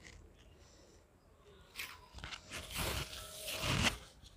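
Rustling and crunching as freshly picked eggplants and the plants' leaves are handled. It starts about two seconds in and is loudest near the end.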